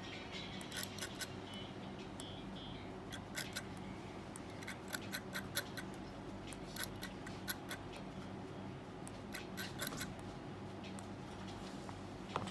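Irregular small sharp clicks, often in quick clusters, from dry-firing a freshly built coil on a rebuildable tank deck: ceramic tweezers pinching and tapping the glowing coil and the box mod's fire button being pressed.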